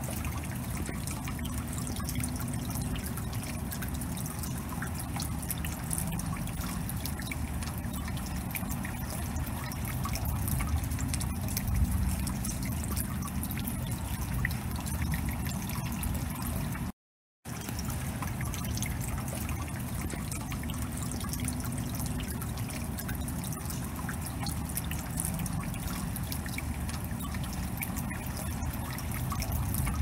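Rainwater dripping and trickling: a dense, steady patter of drops over running water. It cuts out to silence for a moment a little past halfway, then carries on.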